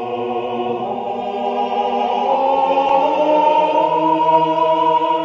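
Background music: a choir singing long held chords, shifting to a new chord about two seconds in.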